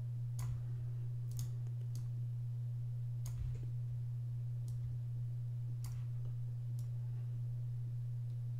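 Computer mouse button clicks, about eight single clicks at irregular intervals, over a steady low hum.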